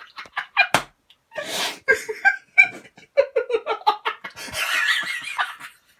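A person laughing in short breathy bursts, with a longer breathy stretch near the end.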